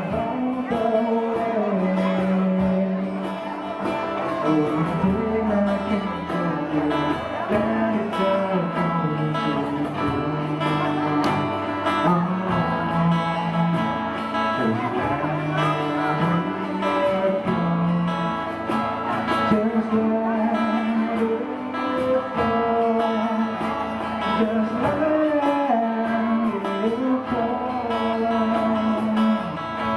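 A band playing a song live: singing over guitar accompaniment.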